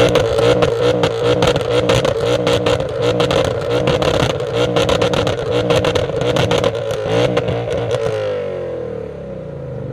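BMW E39 M5's 4.9-litre V8 exhaust held steady at high revs with a rapid crackle, then the revs fall back about eight seconds in.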